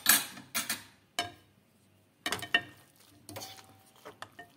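A metal utensil scraping and knocking against a non-stick frying pan as pasta is lifted out for serving: a string of short scrapes and clinks, the loudest right at the start and again about halfway through.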